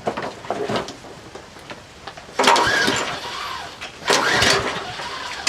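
Troy-Bilt walk-behind mower's 190 cc engine being pull-started twice: two quick yanks of the recoil starter cord, each a brief whir of the engine cranking over, without it catching and running. It is being cranked on fresh gas, unprimed.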